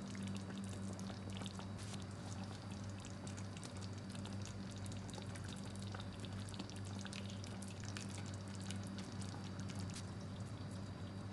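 A faint, steady low hum with many soft, scattered clicks and crackles, and no clear single event standing out.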